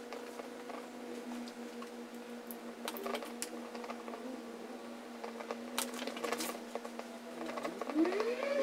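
Soldering iron tip scraping and tapping on the lead came of a stained glass panel while melting out the old solder: faint scattered clicks over a steady low hum. Near the end a rising voice-like call comes in, louder than the clicks.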